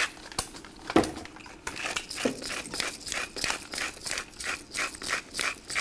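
Hand-held salt and pepper mill being twisted over a bowl of sliced potatoes, making an even run of gritty grinding crunches, about two or three a second. A single knock about a second in.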